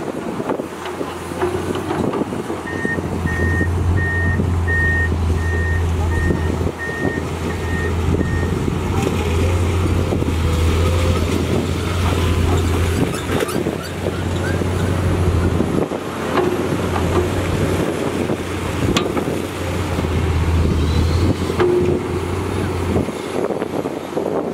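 Komatsu PC210 hydraulic excavator's diesel engine running under load as it digs, a low drone that swells and eases in stretches. In the first few seconds a warning alarm gives a run of about nine evenly spaced high beeps.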